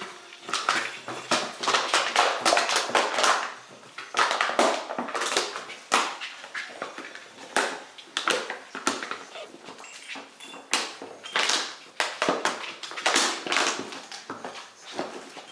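Empty plastic bottle crackling and crinkling in irregular bursts as golden retriever puppies chew it and tug at it.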